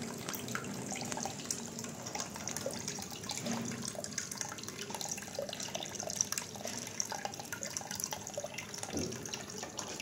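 Water trickling and splashing down the leaf-shaped tiers of a small pump-fed cement tabletop waterfall fountain, with many small drips into the basin.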